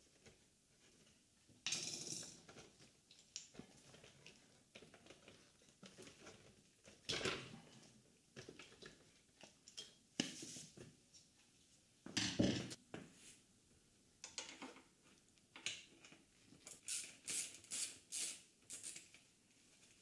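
Faint, irregular clicks, rustles and small knocks of gloved hands working plastic wiring connectors and fairing parts on a motorcycle, with one louder knock about two-thirds through and a quick run of clicks near the end.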